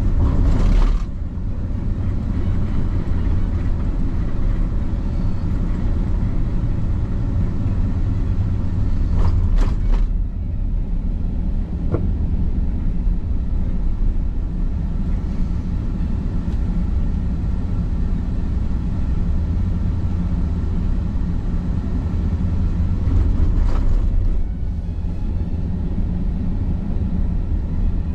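Car driving: a steady low rumble of engine and tyres on the road, with three brief louder swells, about a second in, around ten seconds and around twenty-four seconds.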